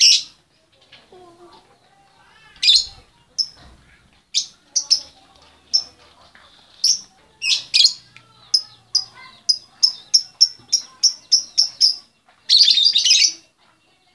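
A female lovebird calling for a male: sharp, high chirps, scattered at first, then a fast run of about four a second from about eight seconds in, ending in a longer, dense burst of chattering near the end.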